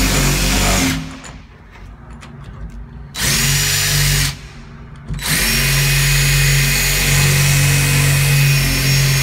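DeWalt drill spinning an Easy Out screw-extractor bit in reverse in a stripped screw, in three runs with a steady motor tone. The first stops about a second in, a short one comes around three seconds in, and a longer steady run starts about five seconds in. The extractor is failing to grip, and the screw does not come out.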